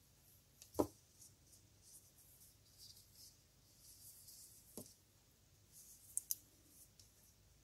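Faint rustle of cotton tatting thread drawn through the fingers as double stitches are worked with a plastic tatting shuttle, with light clicks from the work: a soft knock about a second in, a click near five seconds, and two quick sharp clicks near the end.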